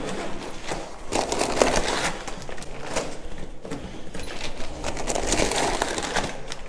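Insulated food-delivery bag being opened and rummaged by hand: the nylon fabric rustles, the foil-lined insulation crinkles, and small clicks and knocks come as a food package is pulled out.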